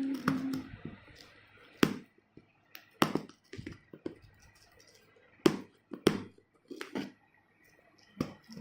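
Irregular sharp taps and knocks from handling a tablet keyboard and its packaging, about nine in all with pauses between them.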